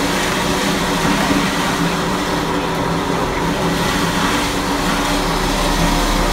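Engine idling steadily at a constant pitch.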